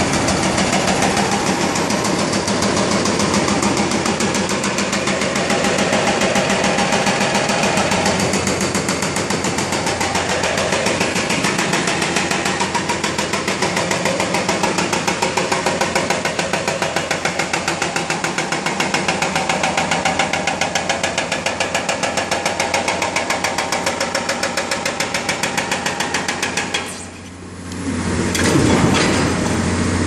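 Hydraulic breaker on a Caterpillar excavator's arm hammering a concrete bridge pier: rapid, steady pounding over the excavator's running engine. It stops for about a second near the end, then starts again.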